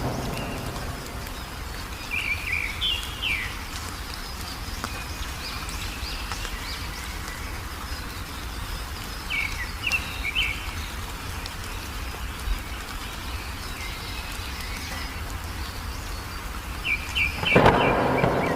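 Wild songbirds chirping: short groups of quick chirps recurring every seven or eight seconds, with fainter chirps between, over a steady low background rumble. Near the end, a louder noisy burst lasting about a second.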